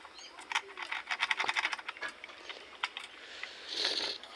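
A rapid run of light, sharp clicks and taps, then a few single clicks and a short hiss near the end.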